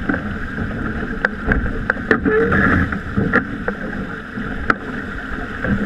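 Water rushing along the hull of a heeled sailboat under way, with wind buffeting the microphone. Several sharp ticks stand out over the steady rush.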